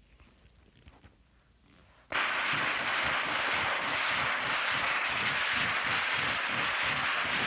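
McCulloch MC1385 canister steam cleaner with a cloth-wrapped hand tool on carpet: a little faint rubbing, then about two seconds in steam comes on suddenly as a loud steady hiss, pulsing about three times a second.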